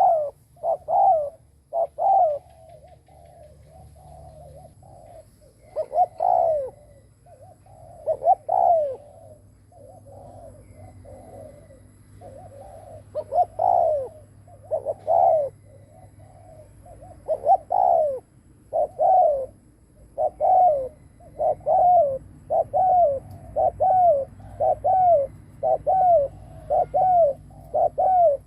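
Decoy spotted dove giving its bow-coo: short down-curving coos repeated in uneven bouts, settling into a steady run of a little over one coo a second in the second half. This is the coo that keepers and trappers use to provoke wild males.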